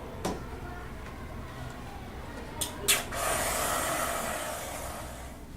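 Aerosol can of whipped cream being sprayed: a few sharp clicks, then a hiss of about two seconds that fades out.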